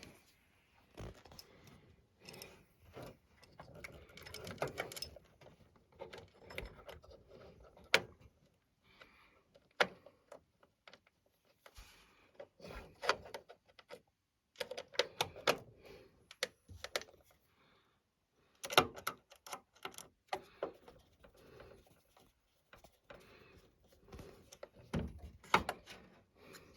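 Hands working on computer parts: a scatter of small clicks, taps and rattles of metal and plastic, with a few sharper single clicks.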